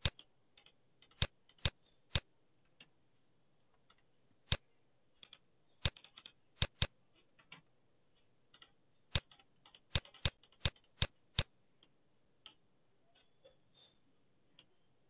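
Computer mouse clicks, about fourteen sharp single clicks at irregular gaps, coming two or three a second near the middle, with fainter keyboard keystrokes in between. The clicking stops about three-quarters of the way through.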